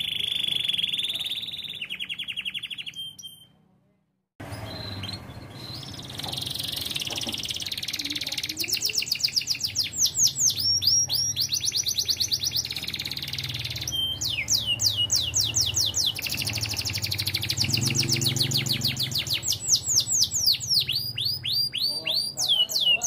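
Domestic canary singing a long, busy song of rapid rolling trills made of quickly repeated high sweeping notes. The song stops briefly about four seconds in, then carries on.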